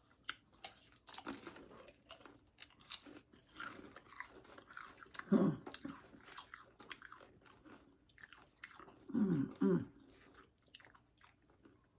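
Close-up crunching and chewing of loaded nachos: crisp tortilla chips snapping and being chewed in many small crackly bites. Two brief vocal sounds with falling pitch come about five and nine seconds in.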